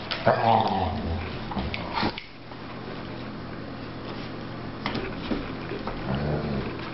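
Dogs at play, a Sussex Spaniel puppy and a basset hound: a wavering growl in the first second and a short low growl about six seconds in, with a couple of sharp knocks between.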